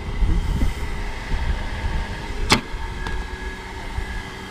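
A bat cracks against a pitched ball once, a single sharp hit about two and a half seconds in, over a steady low rumble.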